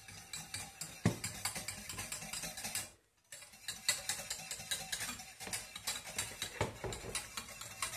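Wire whisk beating fast against the inside of a metal saucepan, a rapid, regular clicking, as pudding powder mixed with milk is whisked into hot milk so it does not go lumpy. There is a louder knock about a second in, and the clicking breaks off for a moment just after three seconds.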